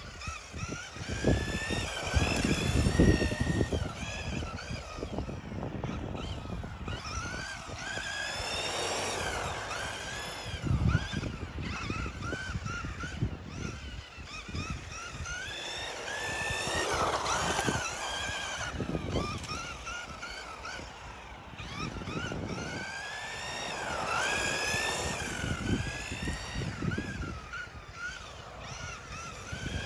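Kyosho Turbo Optima electric RC buggy with a Tamiya Superstock RZ brushed motor, its motor whine sweeping up and down in pitch again and again as it accelerates and slows around the laps, with bursts of low rumble underneath.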